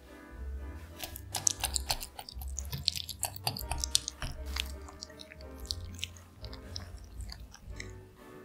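A wire whisk working softened room-temperature unsalted butter in a glass bowl, the wires scraping and clicking irregularly against the glass as the butter is loosened, with quiet background music.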